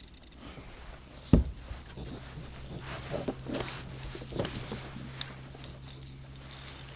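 Knocks and rustling from a just-landed small fish being handled on a kayak, with one sharp thump about a second in. A faint steady low hum runs beneath from about two seconds on.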